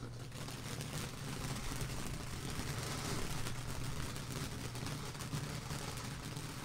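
Ground fountain firework spraying sparks: a steady hiss thick with small crackles that starts as it catches, over a steady low hum.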